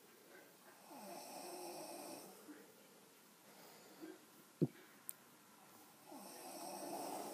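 A person snoring in deep sleep: two long snores about five seconds apart. A short sharp knock falls between them, followed by a faint click.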